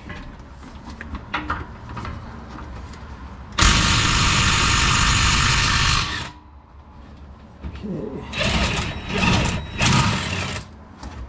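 Impact gun running for about two and a half seconds, undoing the 21 mm nut at the bottom of the rear shock absorber that would not budge by hand. A few shorter bursts of noise follow near the end.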